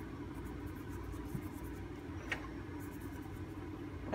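Faint rustling and light taps of plastic-gloved hands handling salad greens, over a steady low room hum, with one small click about two seconds in.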